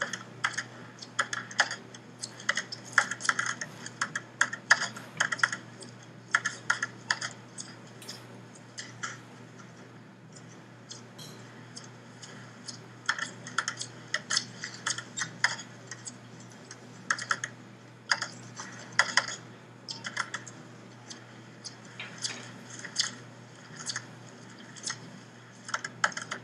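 Runs of quick, light clicks in irregular bursts, with short pauses between, over a steady low hum.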